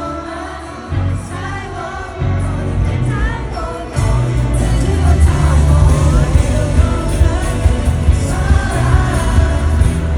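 Live K-pop song: vocals sung over a heavy bass beat, with the backing growing fuller and louder about four seconds in.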